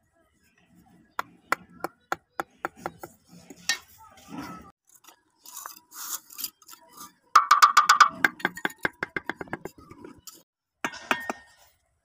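Steel trowel tapping and clinking on bricks as they are set in mortar: scattered sharp taps, then a fast run of loud taps, about eight a second, a little past halfway through.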